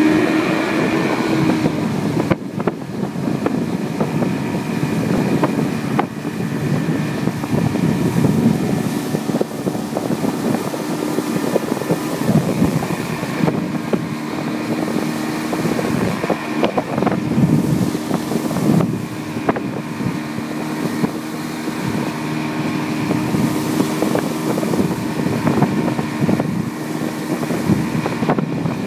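Yamaha outboard motor running steadily at speed under load while towing a water skier, over the rush of the boat's wake. Wind buffets the microphone.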